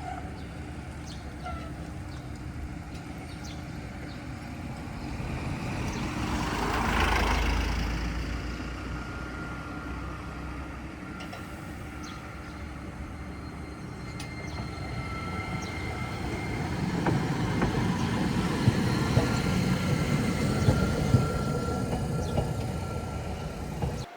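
Toden Arakawa Line tram passing on street-level track. A vehicle swells past about seven seconds in, then a tram grows louder over the last third, with a few sharp wheel clicks over rail joints.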